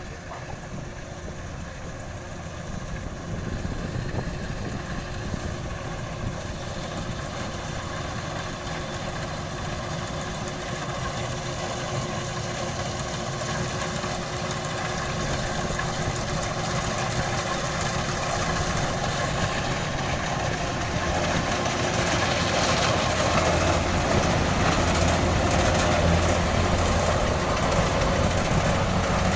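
Kubota DC-93 combine harvester's diesel engine running steadily, growing louder from about halfway through.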